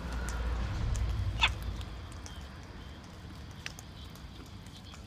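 A sulphur-crested cockatoo gives one short, sharp squawk about a second and a half in, over low handling rumble from the camera.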